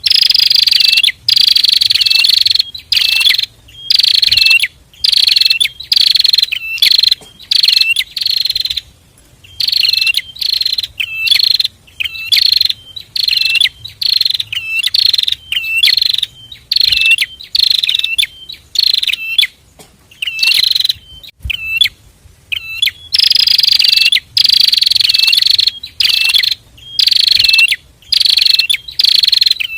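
A pair of prinias (prenjak) singing loudly and without pause: rapid, buzzy, high-pitched phrases repeated over and over with only short breaks between them.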